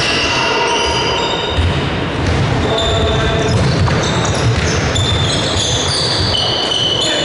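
Basketball game on a gym court: sneakers squeaking on the hardwood floor in many short, high squeaks, over a basketball bouncing.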